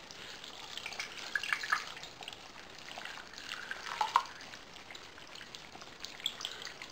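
Water pouring from a glass mason jar into a pot of frozen green beans: a faint, steady trickle with a few small splashes and drips.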